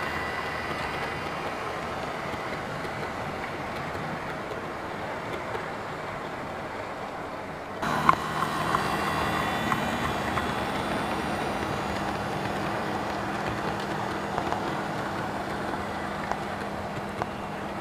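Model railway trains running on the layout's track: a steady rumble of wheels on the rails with small clicks as they cross rail joints. About eight seconds in the sound changes abruptly to a sharp click, after which a steady motor hum runs under the rumble.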